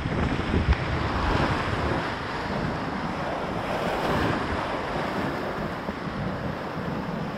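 Rushing whitewater of a river rapid churning close around a kayak, with wind buffeting the microphone and a low knock or two within the first second.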